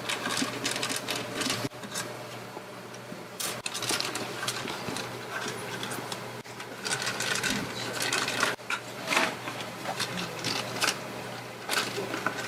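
Hands working inside an opened router, peeling back sticky tape and a black shield: a run of crackling, clicking handling noises in uneven clusters, over a steady low hum.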